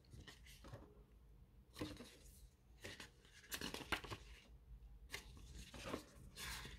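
Quiet paper rustling as the pages of a CD booklet are turned by hand: several short rustles and flicks spread through the few seconds.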